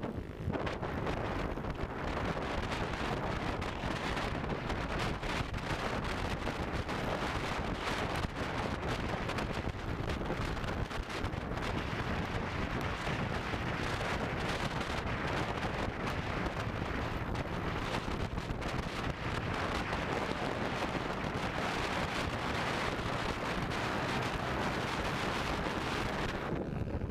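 Steady wind rush on the microphone of a camera mounted on a moving motorcycle, with the bike's engine and road noise blended underneath.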